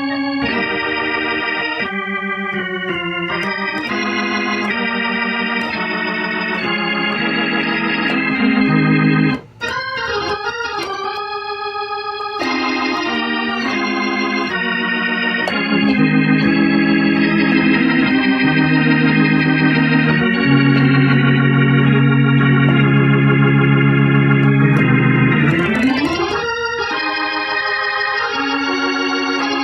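Organ chords played through a Leslie 147 rotary speaker cabinet, stuck at fast tremolo speed. It will not switch to slow, which the owner takes to mean its speed-change relay needs replacing. Sustained chords change every second or two, with a short break about nine seconds in and a rising glide around 26 seconds.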